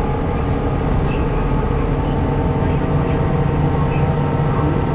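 City bus running, heard from inside the passenger cabin: a steady low engine hum mixed with road and running noise, with no sudden events.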